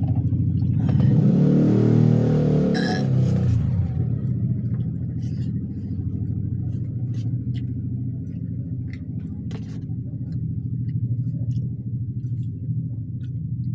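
A steady, loud low motor hum, engine-like, with a louder rushing swell over the first few seconds, then scattered light clicks and taps.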